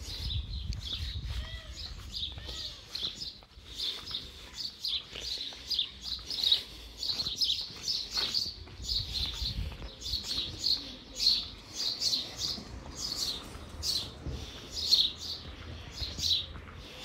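Small birds chirping: a rapid, continuous series of short, high notes, over a low rumble that is strongest in the first couple of seconds.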